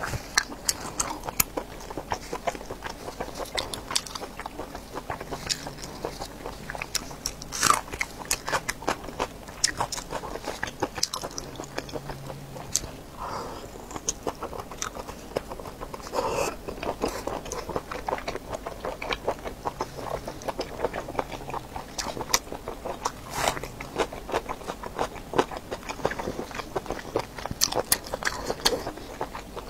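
Close-miked biting and chewing of a ring-shaped sausage, a steady run of short sharp mouth clicks.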